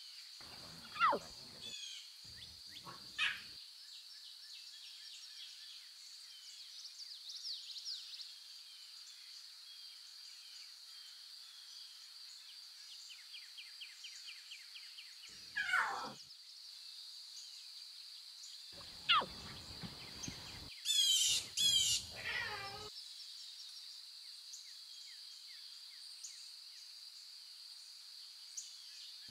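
Wildlife ambience: a steady high-pitched insect drone, with bird chirps and a few short falling animal calls. The loudest is a quick cluster of high sweeping calls about three-quarters of the way through.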